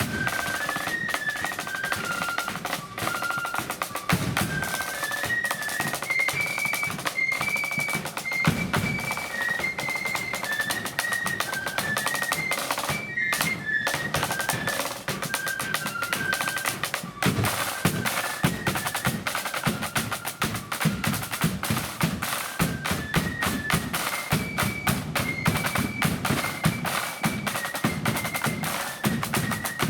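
Marching flute band playing: a line of flutes carries a high melody over rapid snare drumming and bass drum beats, in the loud blood-and-thunder style. The flutes drop out for a moment about halfway through while the drums keep going.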